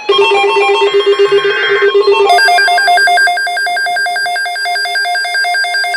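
NOAA weather radio sounding its alert tones for a newly issued severe thunderstorm watch: loud electronic beeping starts suddenly, and about two seconds in it switches to a faster, higher-pitched alternating beep.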